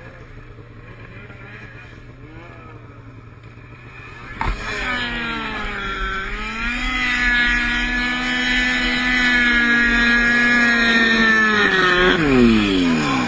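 Ski-Doo snowmobile engine, running low and steady, then revved hard about four seconds in and held at high revs as the sled ploughs through deep powder, before the revs drop away steeply near the end.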